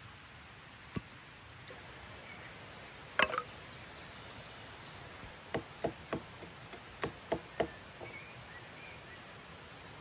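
Axe striking wood in sharp knocks: a single knock, then a loud double knock, then two quick runs of three strikes each, about three a second.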